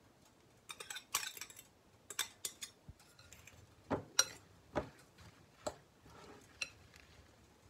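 A metal spoon clinking and scraping against a glass mixing bowl while stirring beaten egg into chopped cauliflower and cilantro. There is a short flurry of scraping about a second in, then irregular single clinks.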